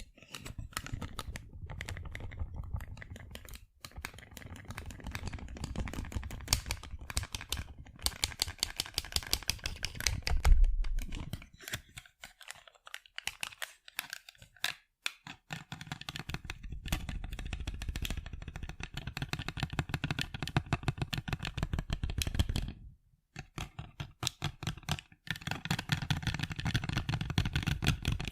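Rapid tapping on sunglasses: quick runs of light taps with a few short pauses, and one louder knock about ten seconds in.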